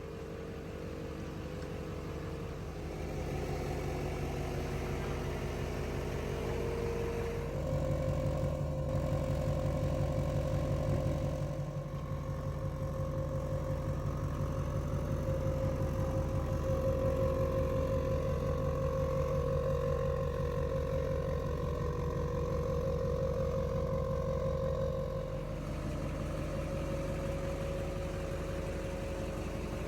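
Truck engine running at low speed, picking up slightly a few seconds in and easing back near the end.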